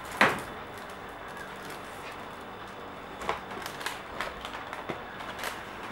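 A short knock just after the start, then a sheet of paper crackling and rustling in irregular bursts from about three seconds in as it is unfolded, over steady background noise.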